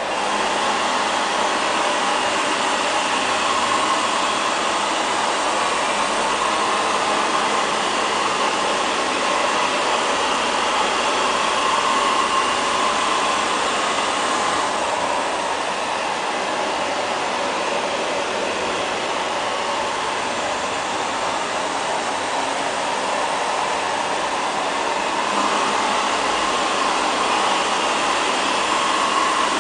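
LL-306 (X500) robot vacuum cleaner running, a steady motor whir that swells gently now and then as it moves about.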